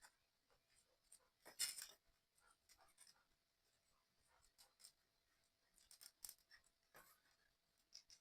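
Small parts of a 3D puzzle model kit being handled and fitted together: scattered faint clicks and taps, with a louder rustling scrape about one and a half seconds in and a cluster of sharper clicks around six seconds.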